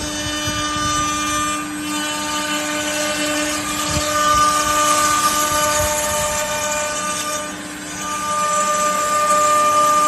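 Heavy-duty CNC wood router running: a steady whine of several held tones from the spindle, with a hiss of cutting that swells for a few seconds in the middle.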